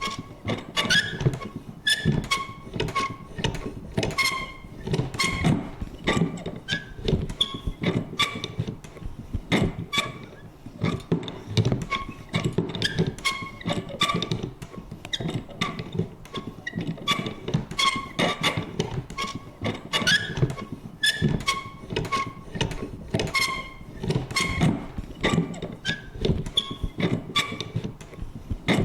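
Vintage paper punch worked over and over: a run of irregular clicks and thunks, several a second, mixed with short, creaky squeaks.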